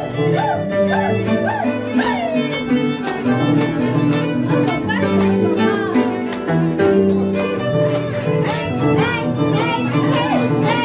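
Violin-led dance music with sliding, repeated violin phrases over a steady bass line and a regular plucked beat.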